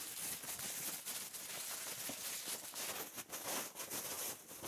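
Faint rustling and small clicks of packaging being handled: a plastic-wrapped package and polystyrene packing peanuts moved about in a cardboard box.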